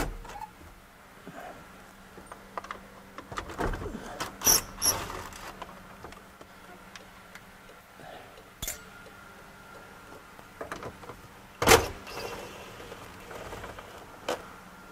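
Scattered clicks, taps and knocks of hand work on a 2003 Chevy Silverado's dash while its instrument cluster's 7mm mounting bolts are taken out with a power tool. The loudest knock comes late on.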